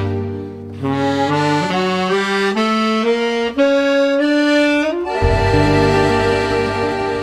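Accordion music: a melody of single notes climbing step by step, then about five seconds in a long held chord over a low bass.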